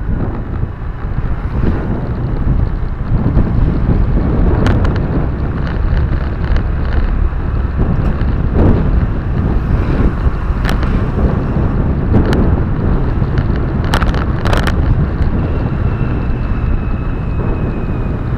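Road and wind noise inside a moving car: a steady low rumble with wind buffeting the microphone, broken by several sharp knocks and rattles at irregular intervals.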